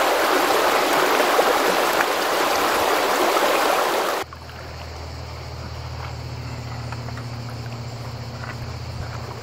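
River water rushing and splashing over shallow rapids, which cuts off abruptly about four seconds in. A quieter, low, steady hum follows.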